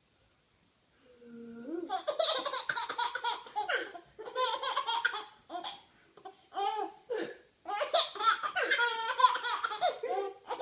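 A baby laughing in repeated high-pitched bouts, several bursts with short breaks between them. The laughter begins about two seconds in, after a moment of quiet.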